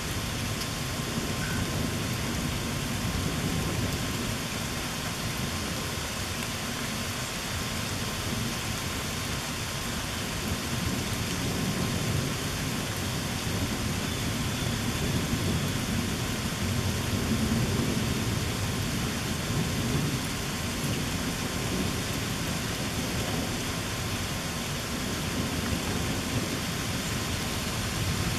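Steady rain falling, under a constant low rumble of thunder that swells and fades a couple of times.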